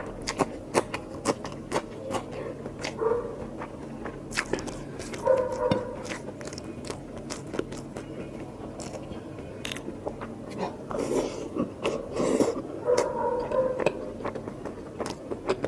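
Close-miked mouth sounds of someone eating mutton curry with rice: wet chewing with many sharp smacking and biting clicks.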